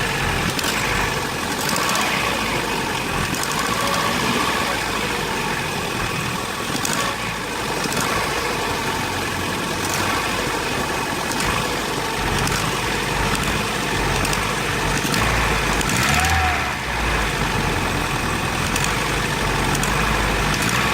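Vauxhall Astra G 1.6 8-valve (X16SZR) petrol engine running at idle, with faint sharp clicks every second or two. The owner reports a clicking that is always there when the accelerator is pressed, and a heavy misfire when cold.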